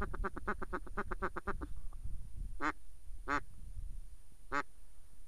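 Duck quacking: a fast run of short quacks, about seven a second, that stops about two seconds in, followed by three single, longer quacks spaced about a second apart.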